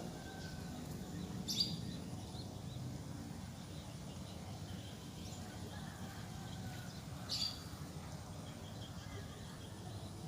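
Birds chirping faintly over a steady low background rumble, with two short, sharp high-pitched sounds, one about a second and a half in and another about seven seconds in.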